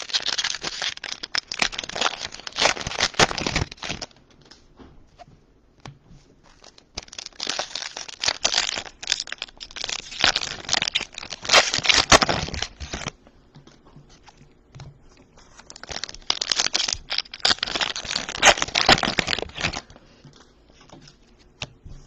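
Plastic trading-card pack wrappers being torn open and crinkled, in three bouts of crackling of several seconds each with short pauses between.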